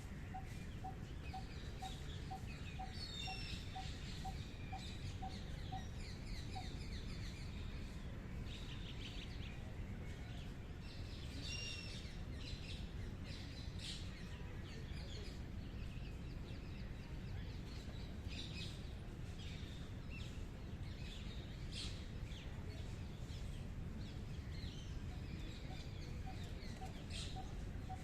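Several birds chirping and calling in high, short notes and trills, with a row of evenly repeated lower notes, about three a second, in the first six seconds and again near the end. A steady low background noise runs underneath.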